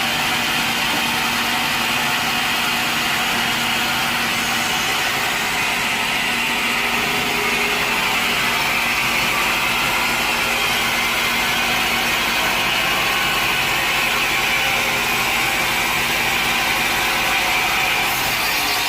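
Sawmill machinery running steadily: a constant engine hum with an even hiss above it.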